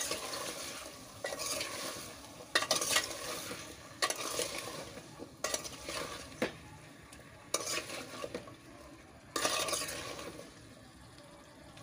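Sliced potatoes and pointed gourd (parwal) being stirred through fried masala in a metal pot, sizzling gently, with a scraping swish about every one to two seconds as they are turned over.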